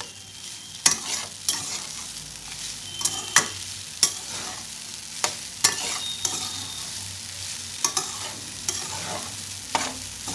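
A metal spatula stirs and scrapes crumbled steamed moong dal around a stainless steel pan in hot ghee. A light, steady sizzle runs throughout, broken by sharp metal-on-metal scrapes every second or so. The dal is being warmed before the sugar goes in.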